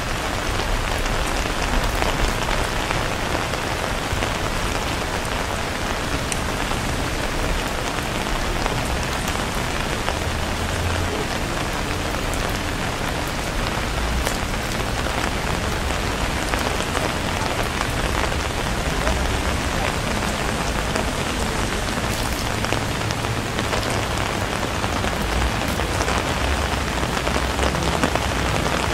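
Steady heavy rain falling, a constant hiss dotted with the small hits of many separate drops.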